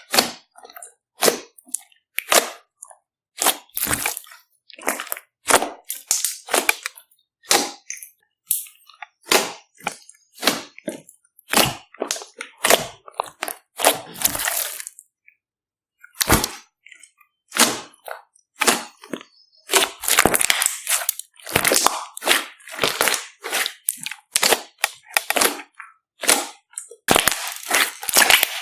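Store-bought slime mixed with glitter being worked and squished, giving sharp, irregular pops and crackles, thickest in the last part.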